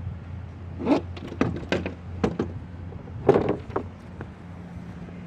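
A quick series of knocks and clattering bumps, loudest about a second in and again past the three-second mark, over a steady low hum.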